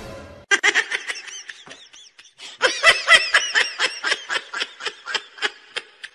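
High-pitched giggling laughter: a long run of short laughs, several a second, with a short break about two seconds in.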